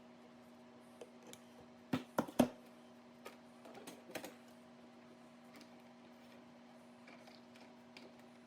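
A few sharp clicks and knocks of small hard objects being handled, three loud ones close together about two seconds in and lighter ticks scattered through, over a faint steady hum.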